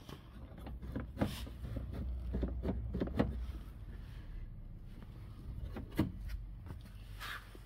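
A 1990 Ford Sierra door's interior handle and latch linkage being worked by hand, giving a series of sharp clicks and knocks, clustered about a second in and again near six seconds, over a steady low rumble.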